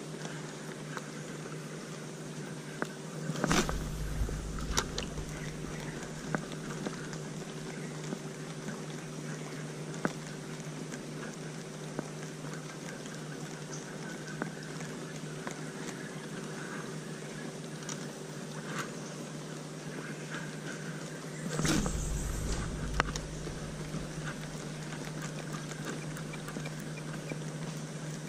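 Quiet outdoor background with a steady low hum and scattered faint ticks, broken by two dull thumps with a short low rumble, about three and a half seconds in and again about twenty-two seconds in.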